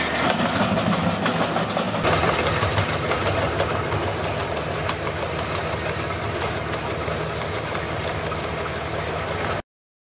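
Tractor-mounted ARPAL wood chipper running, with the tractor engine, as branches are fed in and cut. The sound changes abruptly about two seconds in and cuts off suddenly near the end.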